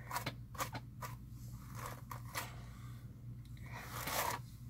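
A hairbrush being pulled through long hair, giving a string of short scratchy brushing strokes, several in a row.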